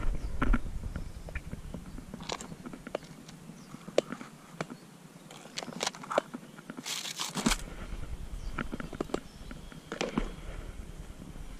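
Handling noise from an angler working with bait and fishing tackle: scattered clicks and knocks, and a longer rustle about seven seconds in.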